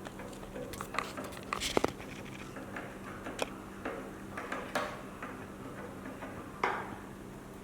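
Scattered light clicks and taps of small hand tools working on an LED screen module while a driver IC is being swapped, with a small cluster about two seconds in and another click near the end, over a steady low hum.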